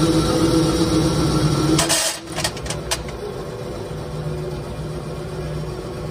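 Brake-shoe moulding press running with a steady motor hum that is louder for about two seconds and then drops, followed by a few sharp metal clicks and a quieter steady hum.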